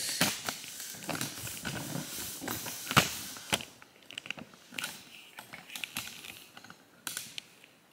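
Handling noise from a camera being picked up and repositioned: scattered clicks, knocks and rustles, with one sharper knock about three seconds in and fewer sounds later on.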